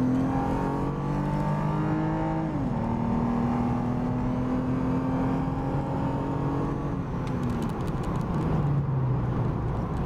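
Car engine heard from inside the cabin while accelerating along the road. The engine note climbs, drops sharply about two and a half seconds in as the car changes gear, climbs slowly again, then falls away near the end. The engine has a newly fitted Injen throttle controller turned up high, and it responds quickly to light pedal input.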